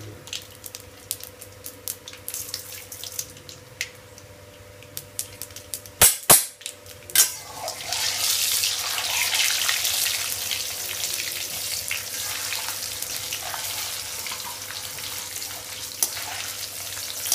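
Hot oil in a steel kadai sizzling steadily as lentils and dried red chillies fry in it, stirred with a steel ladle. Before that there are scattered light clicks, then a few sharp knocks about six seconds in, just before the sizzle starts.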